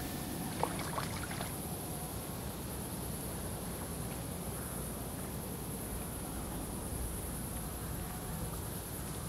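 Steady wash of noise from an experimental tape piece: a low rumble under a constant high hiss, with a few faint clicks and crackles in the first second or so.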